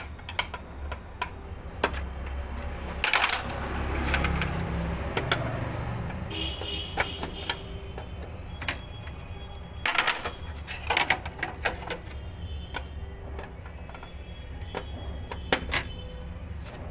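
Long screwdriver turning a screw loose in a photocopier's sheet-metal frame: scattered clicks and small metal knocks, with busier clattering stretches about three seconds in and again around ten seconds, over a low steady hum.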